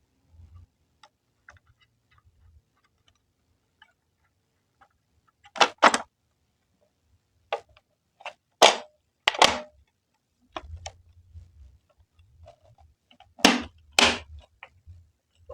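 Sharp clicks and knocks of hard keyboard parts being handled and fitted together during assembly, six in all, coming roughly in pairs, with faint handling rustle between them.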